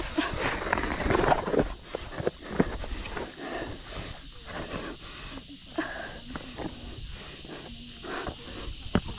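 Running shoes landing and scuffing on bare rock slab in quick, irregular steps during a fast downhill run, with the runner's hard breathing.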